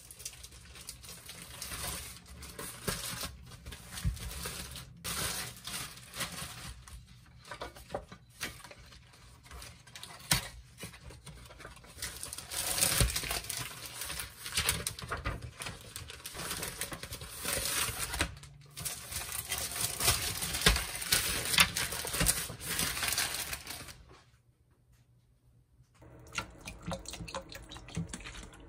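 Plastic wrapping crinkling and tearing as a new plastic cutting board is unwrapped, with clicks and knocks of things being handled on a kitchen counter. The rustling is densest through the middle and stops for a couple of seconds near the end.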